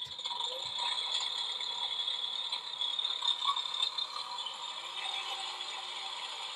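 Driven toy bulldozer's built-in sound effect: a rattling diesel-engine sound played through the toy's small speaker, running steadily.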